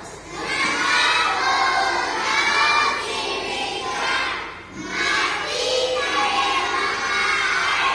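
A group of young children singing together in unison, with a brief break between phrases about four and a half seconds in.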